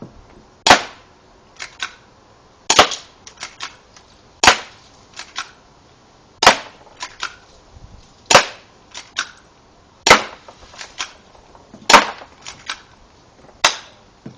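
Sig Sauer P226 airsoft BB pistol firing eight sharp shots, about one every two seconds, each followed by a few quieter clicks.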